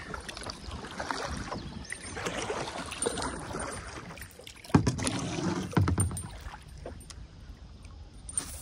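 Small waves lapping and slapping against a plastic kayak hull, with a sharp knock about halfway through and a second, smaller one about a second later.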